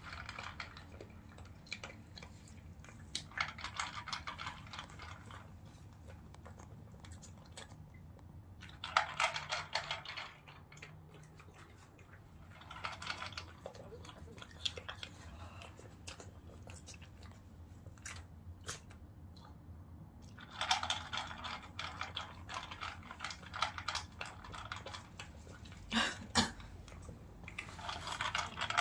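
A small dog crunching dry kibble from a plastic bowl, in spells of rapid crunching a second or a few seconds long with short pauses between them.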